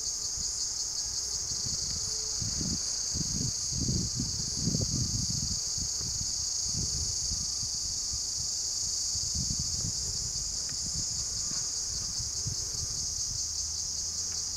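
A steady, high-pitched drone of an insect chorus. Low gusty rumbles of wind on the microphone come and go, strongest about two to six seconds in.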